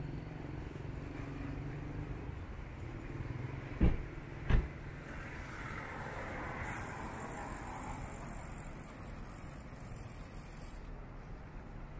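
Steady town-street traffic noise from vehicles, with a motorcycle's engine fading away in the first second. About four seconds in come two sharp thumps, roughly a second apart.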